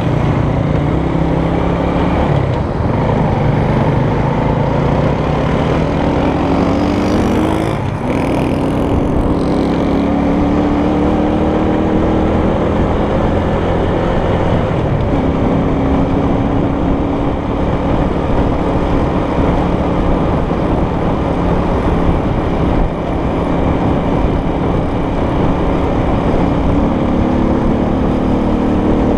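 Small motor scooter's engine running while riding, heard from on board, its pitch rising as it gathers speed over the first several seconds and then holding fairly steady, under a constant rush of wind and road noise.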